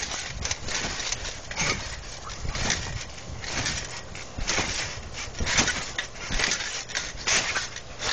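Trampoline mat and springs thumping and creaking under repeated bouncing, an irregular beat of one or two impacts a second.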